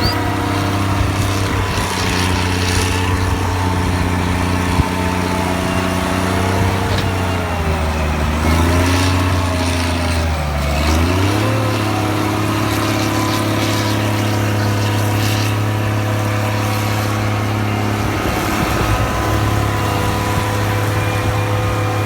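Fiatallis FD9 crawler bulldozer's diesel engine running steadily; about a third of the way in its pitch sags for a few seconds, as under load, then climbs back and holds steady.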